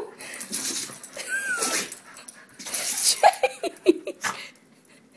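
A dog in a sneezing fit: a sharp sneeze at the start, then more breathy sneezes and snorts, with a quick run of short whimpers and yips about three seconds in.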